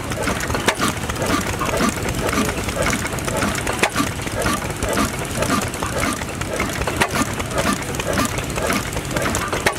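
Austral stationary oil engine by Ronaldson Bros and Tippett, running steadily with an even beat of about two and a half pulses a second.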